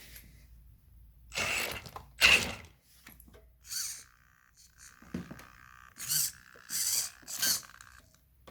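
FTX Kanyon RC crawler's drivetrain run in about six short bursts over a steady whine, grinding from the differentials. The grinding is loudest from the front diff, a fault the owner cannot explain on a truck just out of the box.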